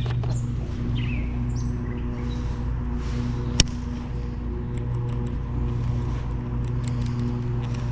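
A steady low mechanical hum, with faint bird chirps in the first few seconds and one sharp click about three and a half seconds in.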